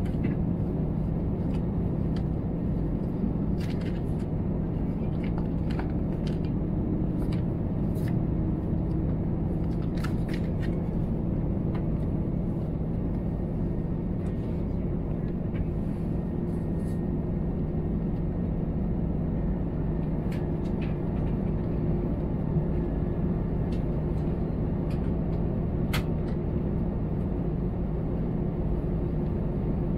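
Cabin noise inside an Airbus A320 standing still before take-off: a steady low rumble with a steady hum, and a few faint clicks.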